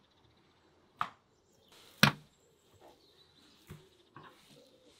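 Four sharp knocks as chunks of raw meat are cut and set down on a stainless steel tray and wooden cutting board. The second knock, about two seconds in, is much the loudest.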